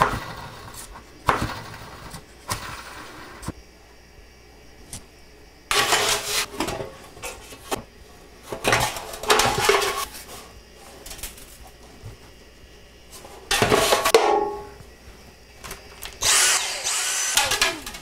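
Repeated bursts of rubbing and scrubbing, each a second or so long, as a dryer part is wiped clean. A brief high squeak comes near the end.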